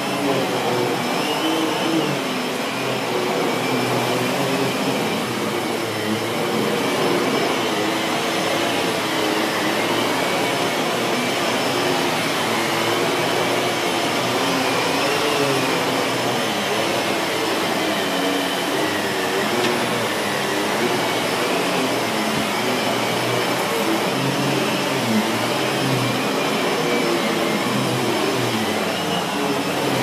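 Miele S7510 bagged upright vacuum cleaner running steadily as it is pushed back and forth over carpet, its pitch wavering slightly.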